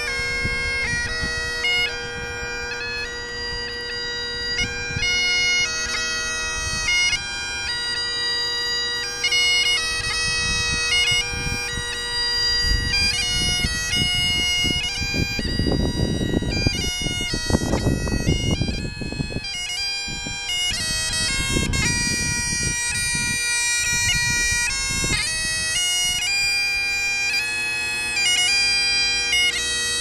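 Bagpipes playing a tune: a steady drone holds underneath while the chanter melody steps from note to note above it. A low rumble comes and goes around the middle.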